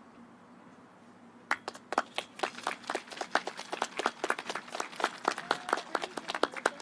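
A few people clapping their hands, starting about one and a half seconds in: sharp, separate claps in an uneven patter.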